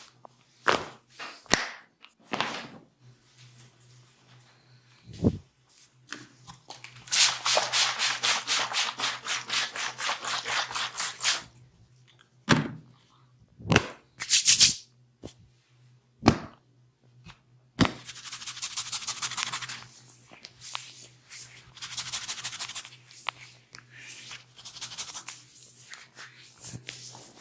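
Massage hands striking fast and rhythmically, about eight strokes a second, in runs of a few seconds. Single sharp cracks fall between the runs.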